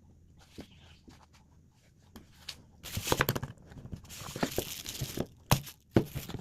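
Packaging being handled and torn open: a few faint clicks at first, then from about three seconds in a run of tearing and crackling with sharp clicks and knocks.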